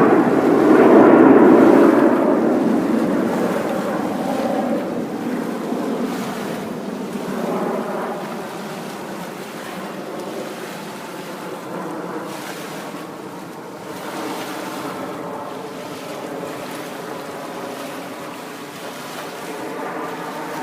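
Snowbirds formation jets (CT-114 Tutors) passing over: a loud jet roar at the start that fades over several seconds into a steadier, more distant rumble.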